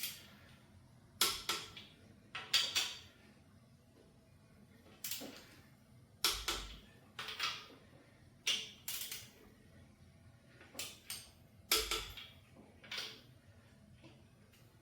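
Ratcheting torque wrench working ARP main cap studs up to 80 ft-lb on a 383 stroker's crank install. It comes in short bursts of quick clicks, a dozen or so, spaced irregularly a second or so apart.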